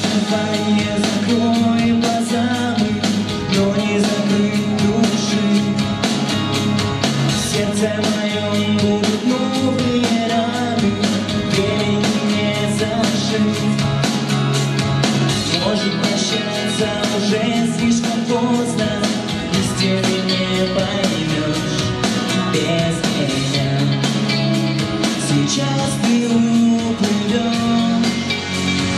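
Male vocalist singing a pop song into a handheld microphone over backing music, amplified through the hall's sound system; the music starts right at the beginning.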